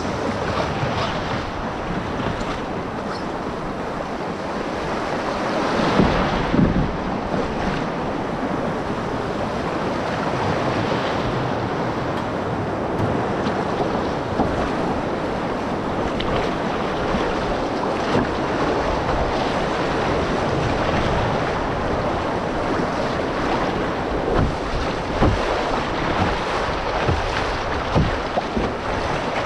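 River water rushing steadily over shallow gravel rapids around a moving canoe, with wind on the microphone and a few brief louder moments.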